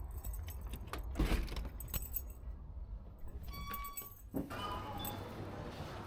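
Metallic jingling and clicks, then a short electronic beep a little past the middle.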